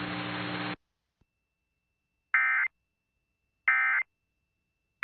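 Emergency Alert System end-of-message signal: identical short bursts of SAME digital data tones, each about a third of a second long and a little over a second apart, starting about two seconds in. Before them, the hum and hiss under the broadcast voice cuts off suddenly within the first second.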